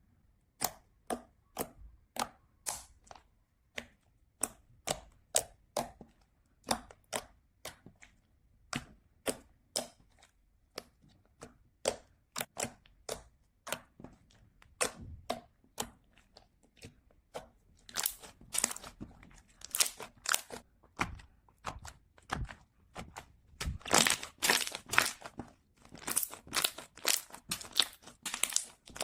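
Slime being pressed and poked by hand, making a steady run of sharp pops about two a second, which turn into denser crackling squishes over the last third.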